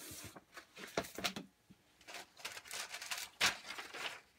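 Paper catalogue being handled: pages rustling and the booklet sliding over a cardboard box, in a string of short scrapes and taps, with one sharper click about three and a half seconds in.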